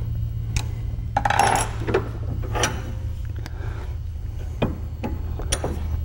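Small steel parts of a shotgun sidelock clicking and clinking as they are pressed and fitted into the action by hand: a handful of sharp separate clicks, several close together about a second and a half in, over a steady low hum.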